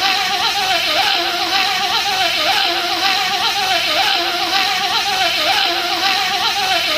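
A man buzzing with his voice in imitation of a bee: a steady, loud buzz with a wavering pitch, its pattern repeating about once a second.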